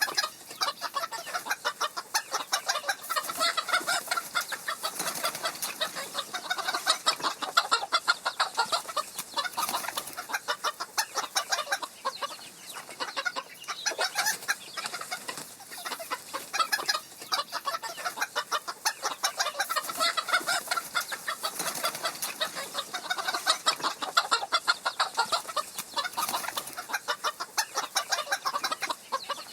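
A flock of chickens clucking, many short overlapping clucks in a continuous busy chatter.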